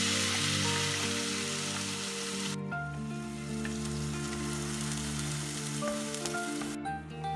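Wet ground onion-and-tomato paste sizzling as it is poured into hot coconut oil in a frying pan and stirred. The loud hiss cuts off about two and a half seconds in, leaving a quieter sizzle.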